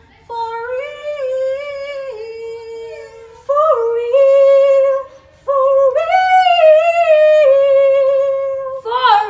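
A woman's high singing voice holding long notes that step up and down in pitch, in three phrases with short breaks about three and a half and five and a half seconds in.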